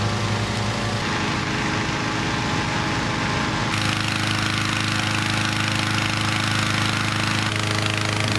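Petrol-engined hot-air balloon inflator fans running steadily at full speed during cold inflation, a continuous engine drone with fan rush. The sound changes abruptly about a second in and again near four seconds in.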